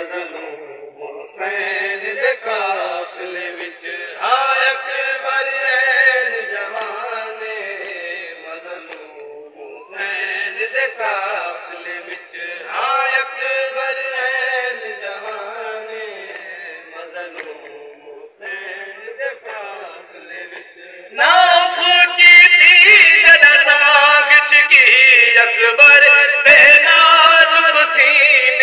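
Men chanting a Shia noha (Muharram lament) in unaccompanied, melodic male voices. About three-quarters of the way through the singing becomes much louder and clearer, as the lead voice on the microphone comes to the fore.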